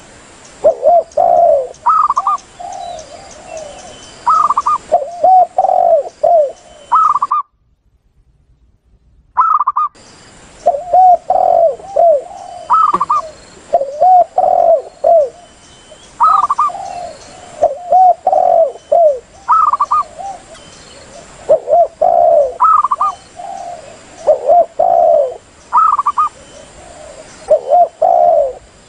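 Spotted dove and zebra dove cooing in repeated phrases of arched, throaty coos with higher clipped notes, a recorded lure call (suara pikat) for drawing in wild doves. The calling breaks off for about two and a half seconds about seven seconds in, then resumes.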